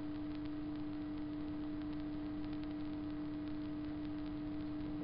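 A steady electrical hum with a faint higher overtone over even background hiss, with a few faint light ticks.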